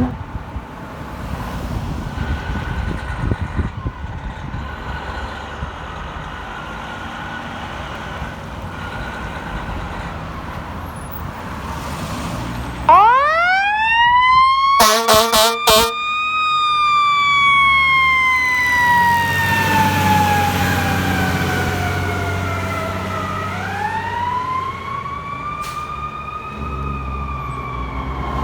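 Fire ladder truck rumbling, then its siren winds up into a rising wail and slowly falls away, winding up a second time near the end. Just after the first wind-up the air horn sounds a quick string of short blasts, the loudest sound, with the truck's engine running underneath.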